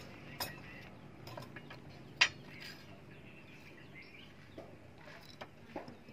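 Scattered light clicks and knocks of a steel sword blade and wooden handle blocks being set down and shifted on a wooden block, with one sharper clink about two seconds in.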